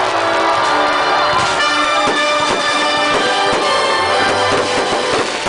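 Loud music with brass, over a run of short sharp cracks from about two seconds in, the cracks of fireworks going off.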